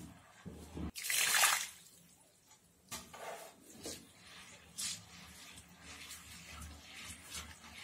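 Cylindrical stone of a traditional stone wet grinder turning in its stone mortar, grating and swishing through soaked rice and urad dal. The loudest is a hissing swish about a second in, followed by several shorter scrapes.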